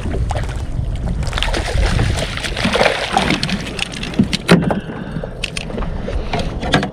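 A hooked rainbow trout thrashing and splashing at the surface beside a kayak as it is brought to the landing net, with wind buffeting the microphone. Short sharp knocks and splashes run through it, the loudest about four and a half seconds in.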